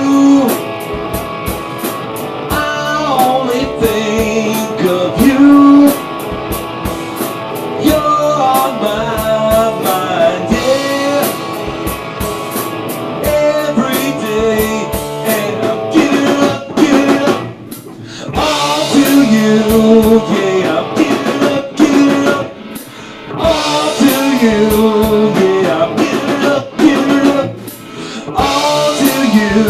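Rock band rehearsing: electric guitar and drum kit playing together, with two brief breaks in the playing about two thirds of the way through.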